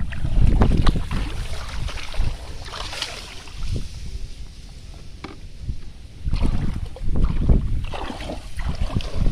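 Water splashing and sloshing in irregular bursts, with sharp knocks and wind buffeting the microphone. It is loudest in the first second and again in the last few seconds.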